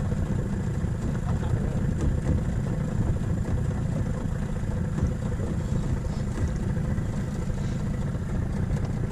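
Small boat's outboard motor running steadily, a continuous low rumble.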